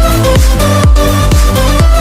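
Background electronic dance music with a steady kick-drum beat, about two beats a second, under held synth tones.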